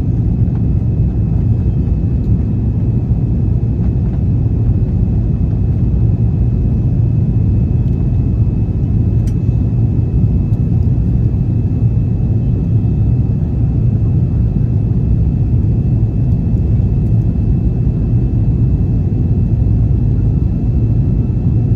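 Steady low rumble of an Airbus A330-243's Rolls-Royce Trent 700 turbofans and rushing airflow, heard inside the cabin as the jet climbs after takeoff, with a faint steady whine above it.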